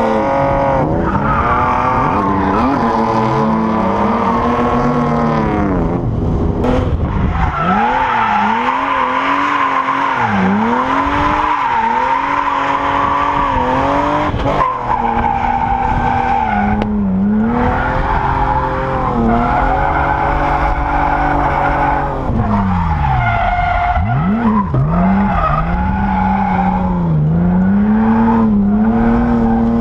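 BMW E36 M3's straight-six engine revving hard while drifting, its pitch dropping and climbing back up again and again every few seconds, with tyres skidding and squealing.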